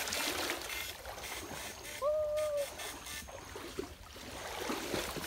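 Stream water sloshing and splashing around wading legs and an electrofishing pole and net being pushed through shallow water under brush. A short steady tone sounds about two seconds in.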